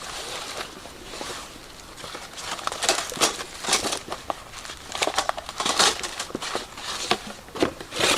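Irregular crinkling and rustling handling noises in short bursts, louder and busier from about three seconds in.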